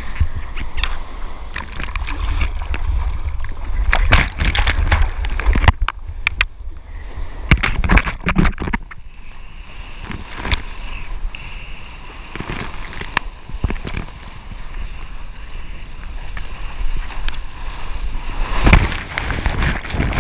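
Seawater splashing and rushing around a surfboard as the rider paddles through whitewater, with heavy wind buffeting the microphone. Sharp splashes come and go, with a loud surge near the end as a broken wave washes over.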